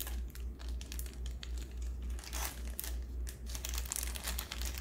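A crinkly black plastic packet crackling as it is handled and folded in the hands, with irregular crinkles throughout. A steady low hum sits underneath.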